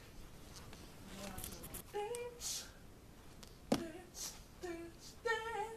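A person's short hummed and sung vocal sounds, one rising in pitch and one held near the end, with breathy hissing between them. A single sharp knock about two-thirds of the way through is the loudest sound.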